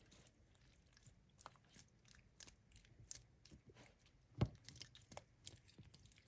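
Faint, sticky clicks and crackles of slime being handled and gathered up, with one soft thump about four and a half seconds in.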